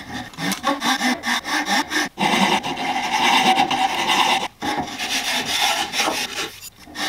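Hand file scraping along the edge of a hardwood board held in a vise, in repeated strokes that shape the cut profile of a dog-bed side. There are short breaks about two and four and a half seconds in.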